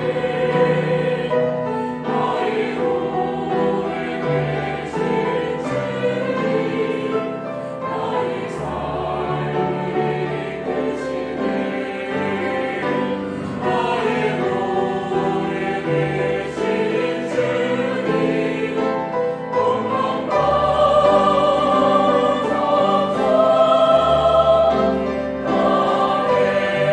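Mixed church choir singing a Korean worship anthem, accompanied by piano, cello and violin. It swells louder about two-thirds of the way through.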